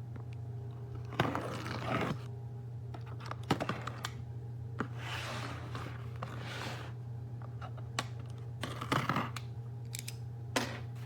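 Object-handling noises: scattered sharp clicks and several short rustling, crinkling bursts, over a steady low hum.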